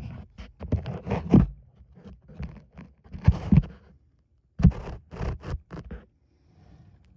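Plastic packaging air pillow being handled and pushed into a fuel tank's pump opening: several bursts of short scrapes and crinkles, with a brief pause about four seconds in and only faint rustling near the end.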